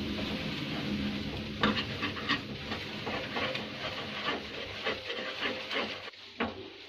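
Mysore pak mixture of gram flour, sugar syrup and hot ghee being stirred in a pan: a steady sizzle as the ghee froths, with repeated scrapes and clicks of the stirring utensil against the pan. The sizzle dies down about six seconds in.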